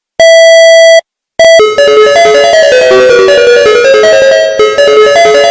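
Loud synthesized emergency alert tone: a buzzy electronic beep held for under a second, a short blip, then from about a second and a half in a fast run of electronic notes stepping up and down in a repeating melody.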